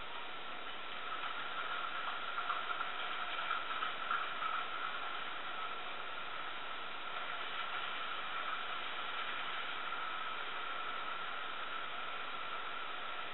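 Hartland Locomotive Works G-gauge maintenance-of-way locomotive running on the track: a steady motor whine with light wheel rattle, a little louder and clattery about two to five seconds in, over a steady hiss.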